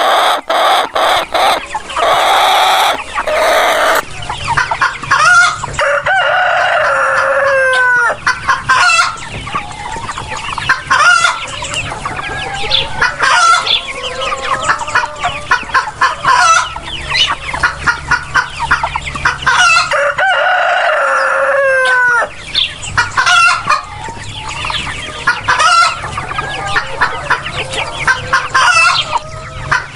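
A flock of chickens clucking busily while roosters crow a few times, each crow ending in a falling note.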